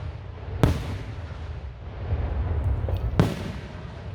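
Aerial firework shells bursting: two sharp booms about two and a half seconds apart, each trailing off in a low rumble.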